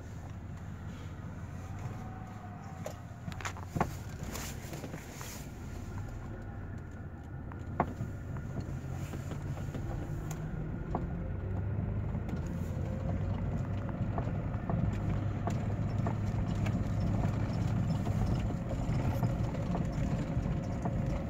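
Vehicle engine and tyres heard from inside the cab while driving slowly over a rough grass track, a steady low rumble that gradually grows louder. A few sharp knocks and rattles from bumps sound in the first half.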